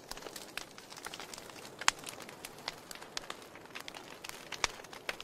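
Fire crackling: irregular sharp pops and ticks over a soft hiss, with one louder pop about two seconds in.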